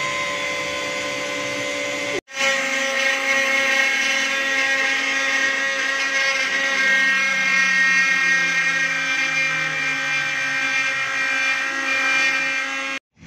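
Trim router spindle on a LEAD CNC 1010 router running at high speed and cutting into a painted wooden sign board. It makes a loud, steady whine of many layered tones, broken by a brief dropout about two seconds in and cut off abruptly just before the end.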